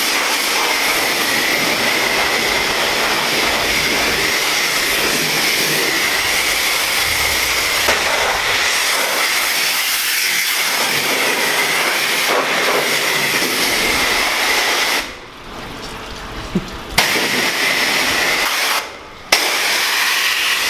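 High-pressure water from a self-serve car wash wand blasting a transmission case: a loud, steady hiss of spray with a high, steady whistle-like note running through it. The spray cuts out for about two seconds around three quarters of the way through and again briefly near the end, then resumes.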